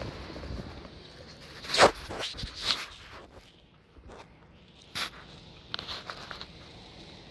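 A few short scuffs and knocks, the loudest about two seconds in and more scattered ones later, over faint wind noise that fades in the first second.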